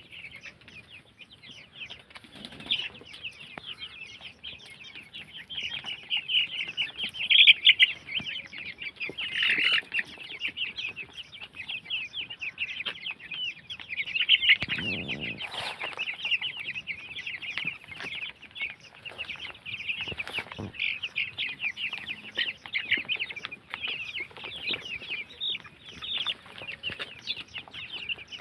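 A flock of Vanaraja chickens peeping constantly, many short high chirps overlapping, with a louder, lower call or flutter about halfway through.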